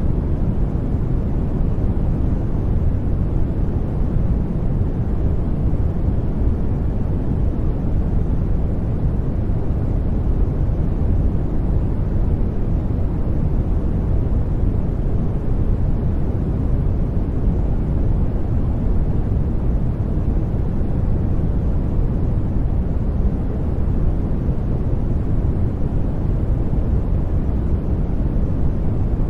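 Steady sleep-masking noise track, a blend of white noise and gentle rain, heard as an even low rumble with hiss above it and no changes or spikes.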